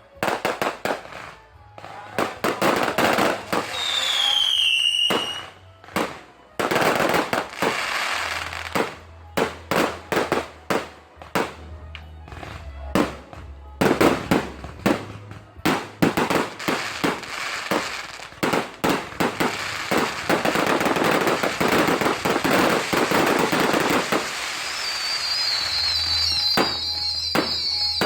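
Fireworks display: rapid bangs of aerial shells going off one after another, with dense crackling. A whistle falls in pitch about four seconds in, and high whistling crackle comes in near the end.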